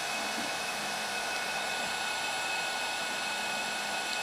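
Electric hydraulic pump of a JX F1650 RC model crane running steadily, an even whirring hiss with a thin high whine.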